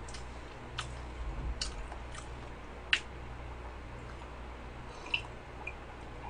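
Soft close-miked eating sounds: quiet chewing of cheesecake with a few small clicks, the sharpest about three seconds in, then a couple of small sips of milk from a mug near the end.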